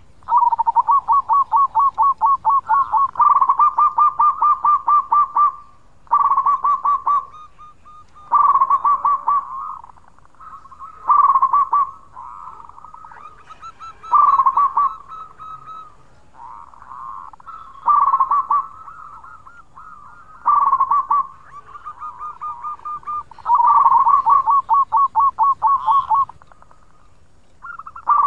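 Local zebra dove (perkutut) cooing: bouts of quick, rattling notes at one pitch, each one to three seconds long, repeated about nine times with short pauses between; the opening and a later run are the longest.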